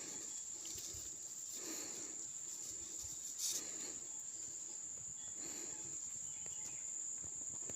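Insects calling in one steady, high-pitched drone, with a few soft rustles now and then.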